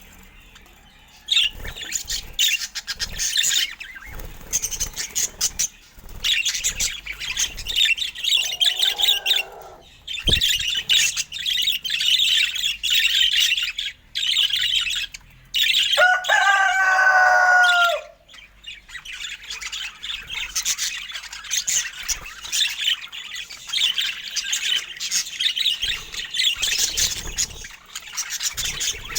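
Budgerigars chirping and chattering in quick, continuous high twitters. About two-thirds of the way through, one bird gives a louder, lower call that lasts about two seconds.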